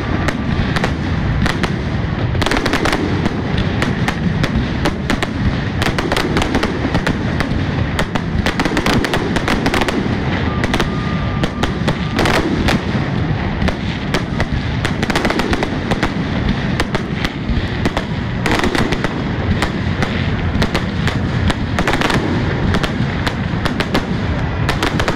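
Fireworks display: aerial shells bursting overhead with dense, rapid crackling and banging that never lets up.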